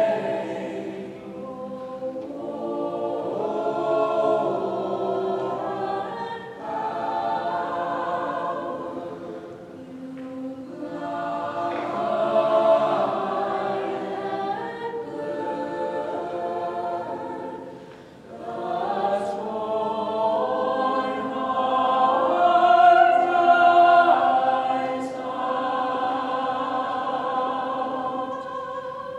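Mixed choir of about a dozen voices singing in harmony, in long sustained phrases with short dips between them. It swells loudest about three quarters of the way through.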